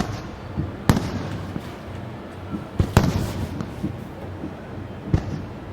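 Aerial fireworks shells bursting: about five sharp bangs, two of them close together in the middle, each trailing off in an echo.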